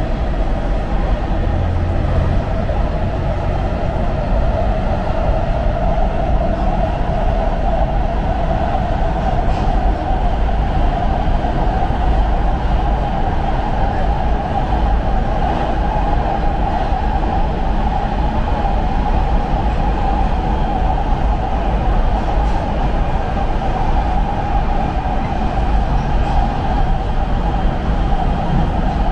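LA Metro D Line subway train running underground, a steady loud rumble with a droning hum over it.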